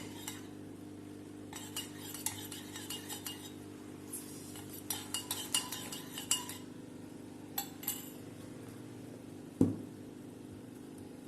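A metal spoon stirring honey into a freshly strained kadha, clinking against the vessel in bursts of quick clinks, with one louder dull knock near the end.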